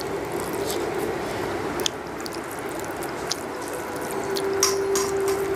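A person eating with her hand from a steel plate: chewing, and fingers squishing rice and curry against the plate, with a few sharp little clicks over a steady hiss. A faint steady hum comes in about four seconds in.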